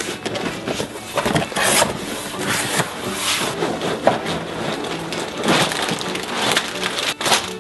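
A cardboard LEGO box being opened and its contents slid out: cardboard scraping and plastic bags of bricks crinkling, with several sharp knocks along the way.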